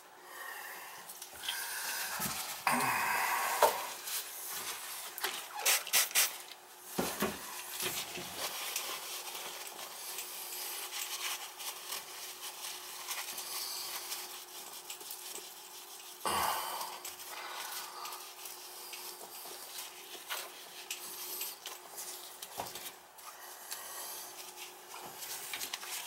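Soft rubbing and scraping of gloved fingers pressing putty around a toilet's closet bolt and base, with a few sharper knocks.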